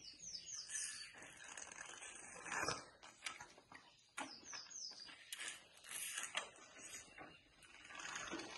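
African elephant calf suckling milk from a large calf nurser bottle, with irregular wet sucking and slurping noises.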